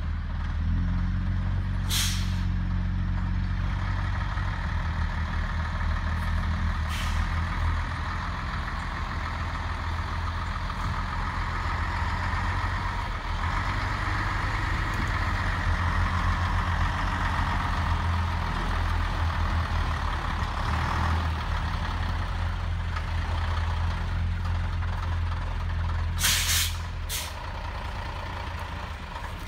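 Heavy military off-road truck's engine running under load as it crawls along a rough forest track. Short sharp hisses, typical of air let out of the brakes, come about two seconds in, again around seven seconds, and twice close together near the end.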